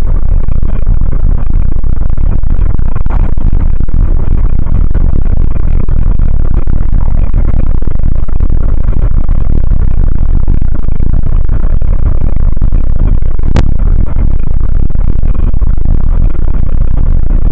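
Loud, distorted rumble of wind and road noise inside a moving car, steady throughout, with two brief clicks about three seconds in and near the end.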